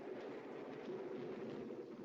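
A steady, even rushing noise with no clear pitch or rhythm.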